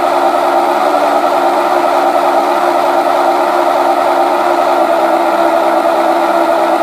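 Simulated turboprop engine sound from a Mr. RC Sound system, played through TT-25 transducers mounted to the plywood fuselage sidewalls of an RC model aircraft. It runs at a steady pitch with several held tones and cuts off suddenly at the very end.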